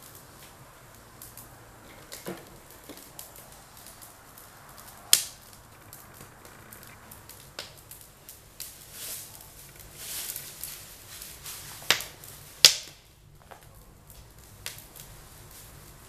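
Wood fire crackling in an open wood-burning stove: many small ticks and snaps, with a few sharp cracks, one about a third of the way in and two close together about three quarters through.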